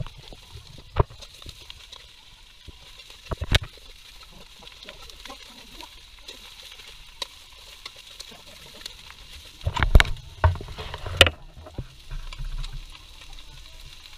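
Metal spatula knocking and scraping against a metal pan as chopped turkey meat is stirred, over a light sizzle of the meat frying. A run of louder knocks comes about ten seconds in.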